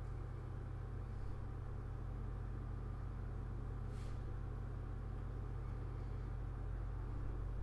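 Steady low hum, with a faint tick about four seconds in.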